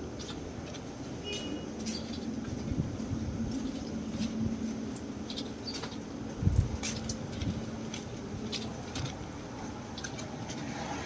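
Street ambience: a steady low traffic hum with scattered light clicks and knocks, a brief high chirp about a second and a half in, and a low thump a little past the middle.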